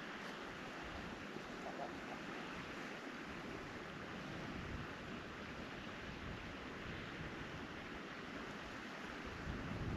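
Steady outdoor background hiss, even and unbroken, with no distinct animal calls.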